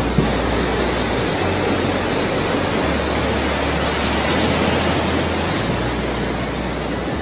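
Heavy storm surf breaking over a pier: a steady, loud rush of churning water and spray, with a single short knock right at the start.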